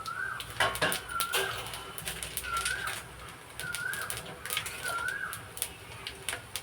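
A bird calling over and over, a short rising-and-falling chirp about once a second, with a few sharp clicks among the calls.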